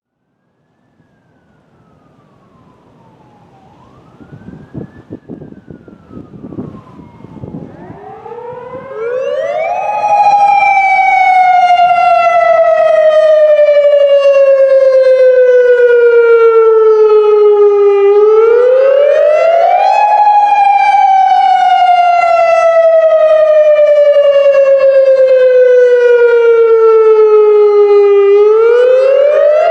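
Federal Signal Modulator 3012 electronic outdoor warning siren sounding the Attack signal during its monthly test. It is very loud. It comes in about eight seconds in, after a faint gliding tone and low rumbling. It then wails in a repeating cycle: a quick rise in pitch and a slow fall, about every ten seconds.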